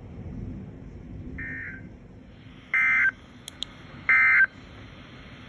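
NOAA Weather Radio sending the Emergency Alert System end-of-message data bursts: three short, shrill digital tone bursts about 1.3 seconds apart, the first one fainter, over steady radio hiss. They mark the end of the warning broadcast.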